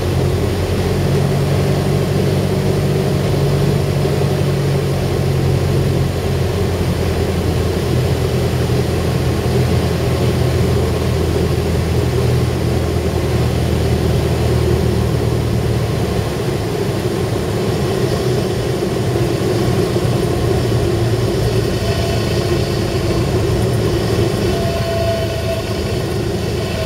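Cessna 172R's four-cylinder Lycoming engine and propeller running steadily, heard from inside the cabin through the final approach and landing roll. The deepest engine tones fall away about two-thirds of the way through.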